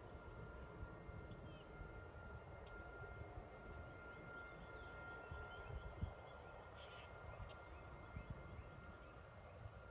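Faint outdoor ambience: a low wind rumble on the microphone, a thin steady tone and scattered faint bird chirps.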